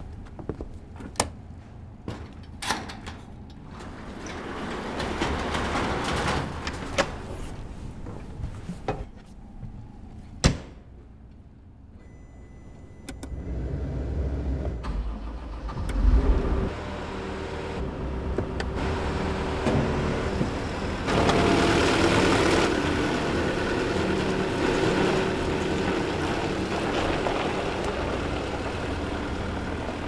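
Sharp clicks and knocks from a machine's cab controls, then a construction machine's engine starting partway through with a heavy low thud and running on steadily, growing louder about two-thirds of the way in.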